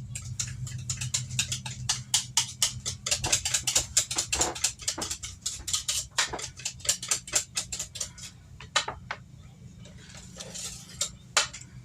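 Hand whisk clicking quickly against a mixing bowl, about five or six strokes a second, as cake batter is whisked together. The strokes thin out and stop after about eight seconds.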